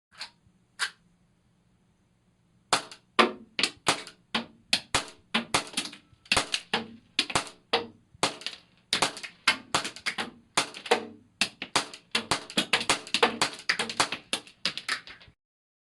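Sharp metallic clacks and snaps from a Tanaka P226 MK25 model pistol: two single snaps, then after a pause a long irregular run of clacks, often in quick pairs, about two to three a second, stopping near the end.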